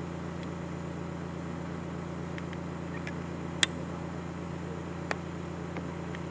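Steady low mechanical hum, with two short sharp clicks, the first and louder about three and a half seconds in, the second about five seconds in.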